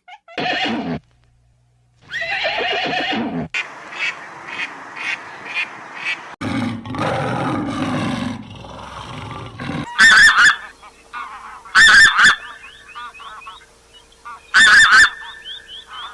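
A run of different animal calls edited one after another, with abrupt cuts between clips. Near the end come three loud, short calls spaced two to three seconds apart.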